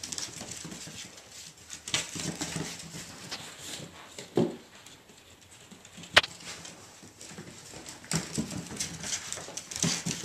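Jack Russell Terrier puppies scuffling and tussling over a ball on a carpeted floor, with scattered small clicks and patters from paws and the ball. A single sharp knock about six seconds in is the loudest sound, and the scuffling gets busier near the end.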